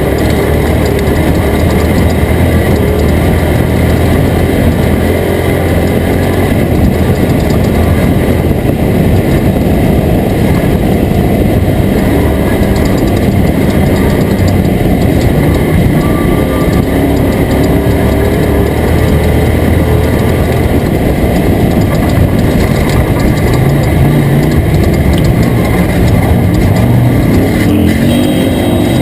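Toyota Tacoma prerunner race truck driven hard off-road: loud engine and rough chassis and terrain noise, with the engine pitch shifting and rising near the end.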